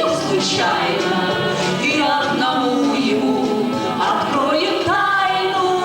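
A song sung by a group of voices over musical accompaniment.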